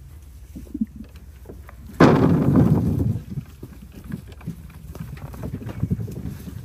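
A load of peaches dumped onto a sorting table: a sudden tumbling rumble about two seconds in that dies away over about a second. Scattered soft knocks of fruit being handled and dropped into the bin follow.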